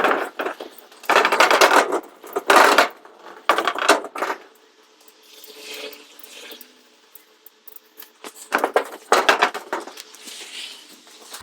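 Metal roofing panels being scrubbed clean by hand, in three bursts of rapid scraping strokes with a metallic rattle.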